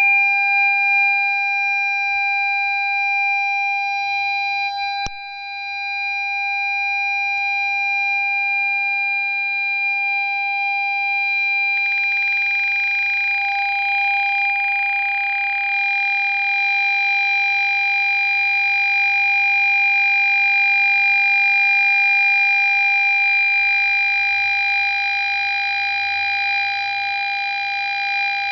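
Ford Fiesta parking-sensor buzzer sounding one continuous steady tone rather than separate beeps, the signal that an obstacle is very close. There is a click and a brief dip about five seconds in, and a hiss joins the tone about twelve seconds in.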